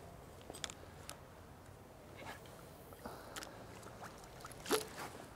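Fishing rod and fixed-spool reel being handled as the waggler float is drawn back and the line sunk after a cast: a few soft clicks and ticks over a quiet background, with one sharper click near the end.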